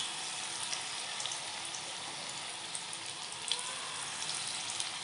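Hot oil sizzling steadily in a frying pan around small fritters of semolina batter, with scattered light pops and crackles.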